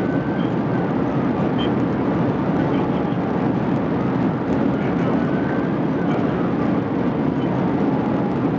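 Steady road and engine noise of a car driving fast, heard from inside the car, with faint whines that slide up and down.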